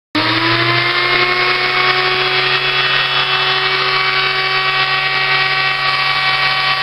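Fein MSfa 679d angle grinder running with no load: its motor whine rises a little in pitch over the first second as it comes up to speed, then runs steadily.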